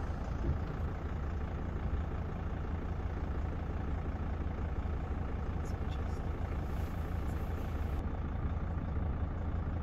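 Van's engine running with a steady low rumble, heard from inside the cab.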